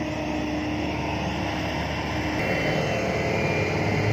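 Heavy diesel engine of a dump truck or excavator running steadily. About two and a half seconds in the engine note shifts and grows slightly louder.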